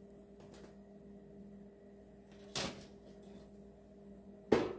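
Two knocks from handling the deep fryer's parts: a lighter one a little past halfway, then a louder clunk near the end as the wire frying basket is set down into the empty metal fryer pot.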